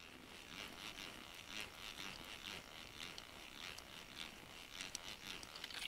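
Small reel on a short ice-fishing rod being wound by hand: a faint whirring that pulses about twice a second.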